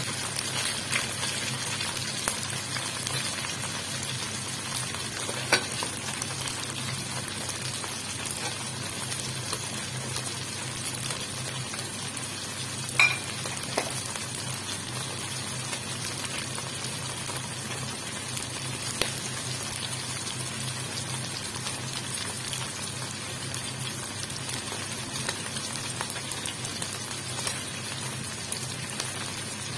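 Chicken livers sizzling in shallow oil in a stainless steel wok: a steady frying hiss with a few sharp pops, the loudest about halfway through.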